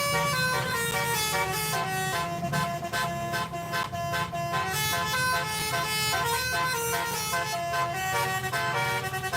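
Bus 'telolet' multi-tone horn playing a tune of quickly changing notes, over the low running of a bus engine.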